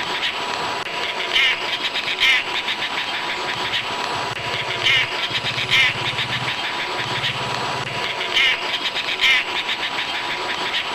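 Dollarbird (Eurystomus orientalis) giving harsh, rapid rasping chatter calls, in pairs of short bursts about a second apart, repeated every few seconds.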